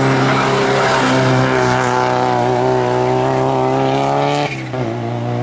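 Race car engine pulling hard at high revs on a hillclimb, its pitch holding and slowly rising, with a brief drop in revs about four and a half seconds in, like a lift or gear change.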